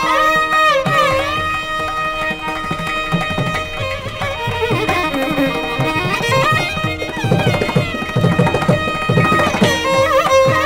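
Carnatic violin playing a kriti in raga Vachaspathi, its held notes bending through sliding ornaments, over a steady stream of mridangam and ghatam strokes that grow denser in the second half.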